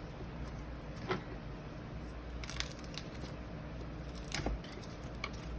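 Papery skins of a fresh garlic bulb crackling and tearing as it is pried apart into cloves, with a few scattered light knocks.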